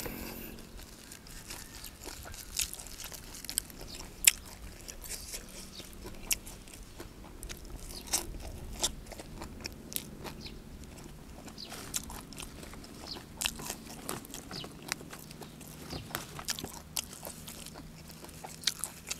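A person chewing and biting into fresh leafy greens with fish laab: irregular crisp crunches and mouth clicks, the sharpest about four seconds in.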